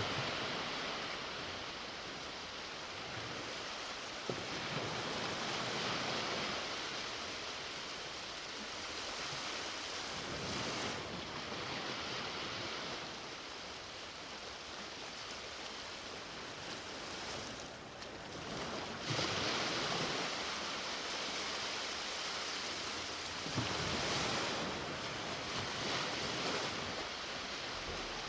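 Ocean surf on a beach: waves breaking and washing up on the shore, a constant hiss that swells and eases every several seconds.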